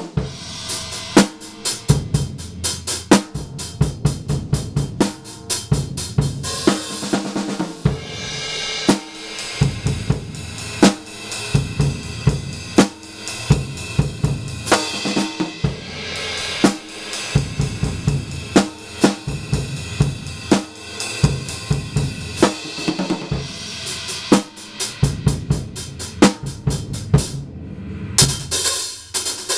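Sound Percussion drum kit played with sticks, on its stock drumheads and steel hoops: a continuous beat of bass drum, snare and toms under hi-hat and cymbals. Near the end the cymbals drop out for a moment, then a crash cymbal comes in.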